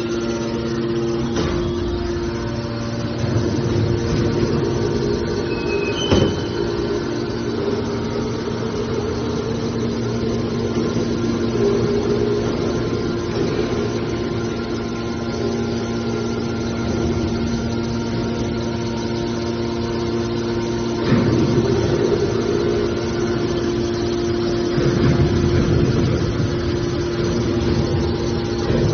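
Scrap car baler running with a steady mechanical hum, broken by a few sharp metal knocks, the loudest about six seconds in.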